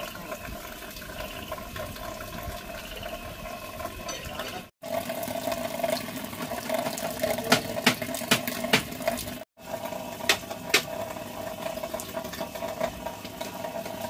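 Water running steadily, with a scatter of sharp clicks and knocks in the second half, and two brief cut-outs in the sound.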